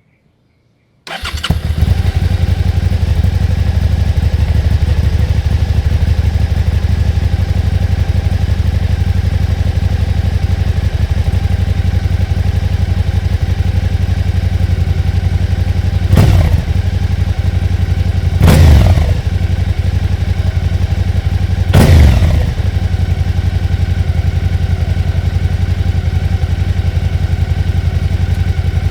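Suzuki SV650's V-twin engine, breathing through a Yoshimura Alpha slip-on exhaust, starting about a second in and then idling steadily. Three short revs of the throttle, each rising and falling back to idle, come in the second half.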